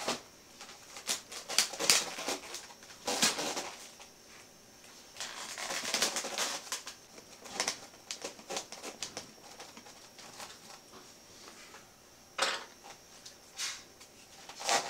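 Rustling, rubbing and scattered light clicks from handling a model airplane's wing and its servo wiring as the wing is slid onto the fuselage. The handling is busiest in the first half, with a few separate clicks later.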